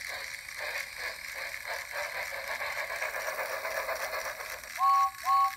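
A battery-powered motorized toy train engine's small motor and gearbox running with a steady whirring rattle, then two short two-note electronic whistle toots from its speaker near the end.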